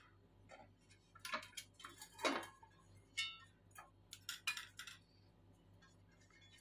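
Stainless steel tin being greased with oil using a silicone brush and turned by hand on its stand: scattered soft scrapes and light clinks of brush and metal, the loudest a little past two seconds in, thinning out near the end.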